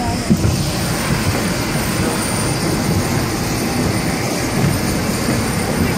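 Auxiliary power unit of a parked Boeing 787-8 running: a loud, steady rushing noise with a faint high whine.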